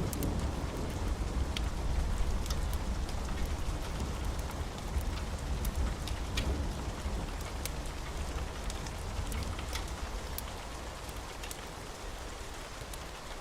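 Steady rain hissing, with scattered sharp drop ticks, over a low rumble of distant thunder that gradually dies away.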